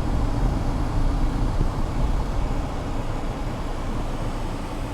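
Steady low rumble with a fainter hiss over it, like road noise from a moving car.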